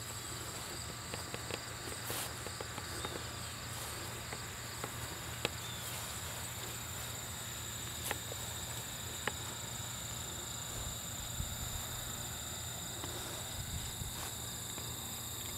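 Insects in the grass, crickets by the sound of it, trilling steadily at a high pitch, with a few faint clicks.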